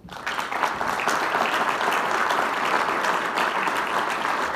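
Conference audience applauding at the end of a keynote talk: dense, steady clapping that starts suddenly and holds at full strength.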